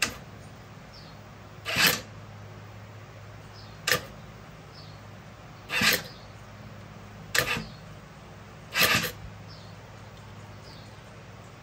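Six short hissing spurts, about one every two seconds, as the oil and fuel flooding the crankcase of a Polaris Scrambler 50's small engine are blown out.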